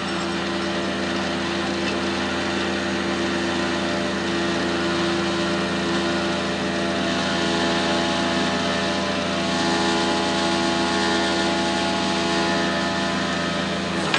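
Tow truck winch reeling in its cable under load, pulling a stuck vehicle out of mud. The machine drone holds a steady, even pitch and cuts off suddenly near the end.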